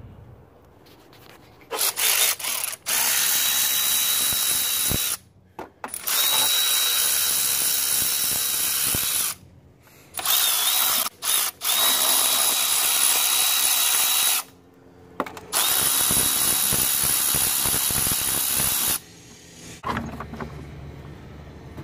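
Cordless power ratchet running in four long bursts with brief starts between, spinning out the 10 mm nuts that hold the engine shield, its motor giving a steady high whine.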